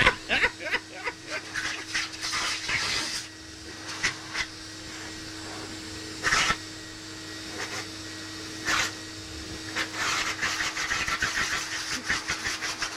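Puppy yelping in quick runs of short cries, over the steady hum of a pet grooming dryer.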